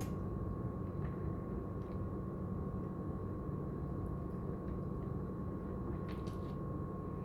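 Steady low background hum with a constant thin tone above it, and a few faint clicks about a second in and again about six seconds in.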